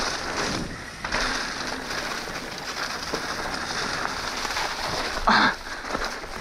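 Trek Slash 9.8 mountain bike riding down a dirt trail: an even rushing noise of tyres and riding, with a short, louder burst of noise about five seconds in.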